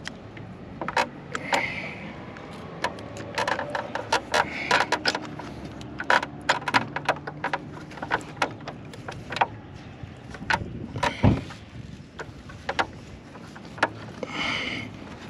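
Metal clicks and clacks of a motorcycle's four-piston Tokico brake caliper with new pads being worked by hand over the front brake disc, with a heavier knock about 11 seconds in.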